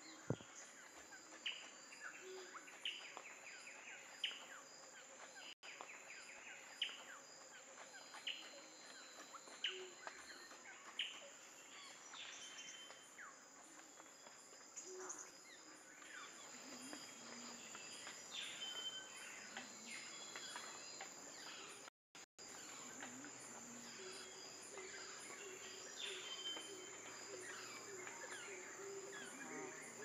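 Faint forest ambience: a steady high insect drone, with sharp, downward-sweeping bird calls repeating about every second and a half through the first half, then scattered other calls. The sound cuts out briefly twice, at about five and a half seconds and about twenty-two seconds in.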